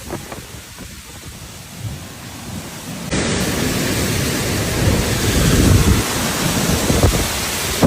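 Storm noise: wind and rain rushing over the microphone. It jumps abruptly much louder about three seconds in and stays loud.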